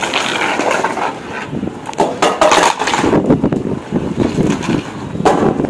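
Irregular knocks and crunching as a Labrador plays with a hard cylindrical roll on a concrete floor.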